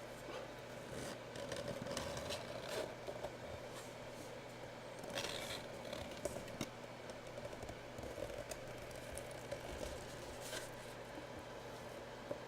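Packaging of a sealed memorabilia box being handled and torn open: scattered rustles, scrapes and clicks, the loudest about five seconds in, over a faint steady hum.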